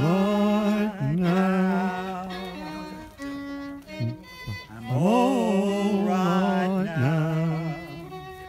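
Live solo violin playing a slow song accompaniment with sliding, swooping phrases and long held notes, fading near the end.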